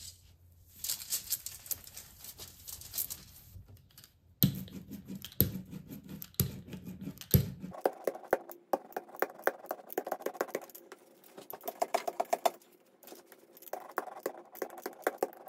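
A damp sponge wipes aluminium foil, then an ink brayer is rolled back and forth over the foil. From about halfway through, each pass makes a fast crackle of ticks as the roller's tacky ink and the creased foil meet.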